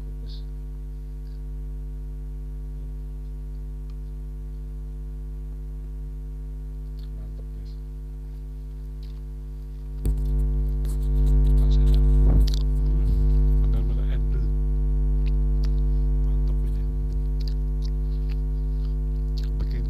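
Steady electrical mains hum, a low buzz with a stack of overtones, which jumps louder about ten seconds in. Faint clicks and handling noises near the microphone sit over it in the second half.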